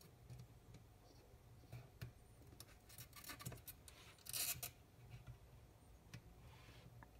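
Faint handling sounds of desoldering a varistor by hand: light clicks and scrapes of a soldering iron tip and fingertips on a multimeter circuit board, with one louder, brief scratchy rasp about four seconds in. A faint low hum runs underneath.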